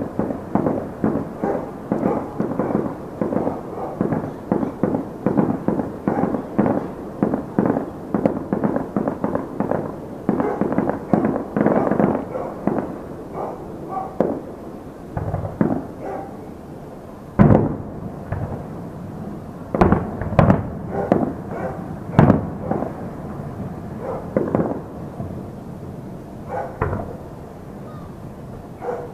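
Fireworks display: a quick, dense run of bangs and crackles that thins out after about fifteen seconds into separate booms a second or two apart.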